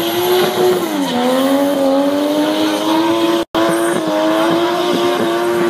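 A drift car's engine held at high revs while its rear tyres spin and squeal across the tarmac. The engine note dips about a second in and then climbs slowly back. The sound cuts out for an instant about halfway through.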